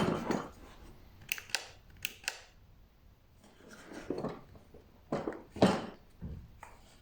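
Handling noises: a few sharp clicks, then knocks and thumps of hard objects being moved about. No motor is running.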